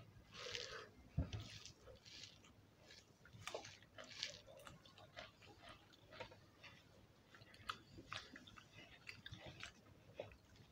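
Quiet chewing and mouth smacks of people eating khichuri with their hands, with scattered small wet clicks from hands working the rice on the plates. A single low thump about a second in is the loudest sound.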